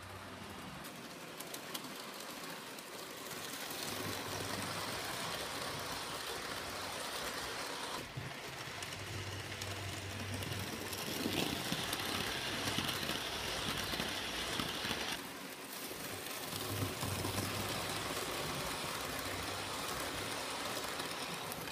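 Model railroad steam locomotive made by IHC, pulling passenger cars, running on the track with the steady noise of its motor and wheels on the rails. The sound gets louder as the train passes close, loudest a little past the middle, with abrupt shifts about 8 and 15 seconds in.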